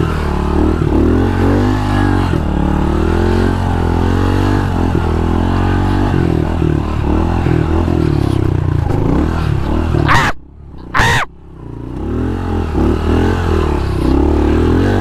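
Pit bike engine revving up and down under load while riding through thick, wet sand. Just after ten seconds in, the engine sound breaks off for about a second, with a sharp knock at either side of the gap.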